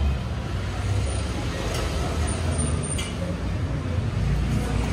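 Steady low rumble of street traffic, with a couple of faint clicks.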